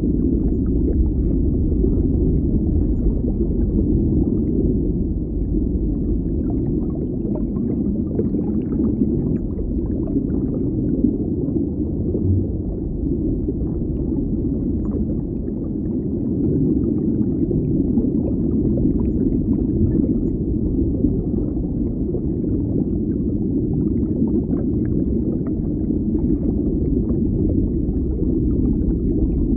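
Deep underwater ambience: a steady low rumble with faint scattered crackles and gurgles over it.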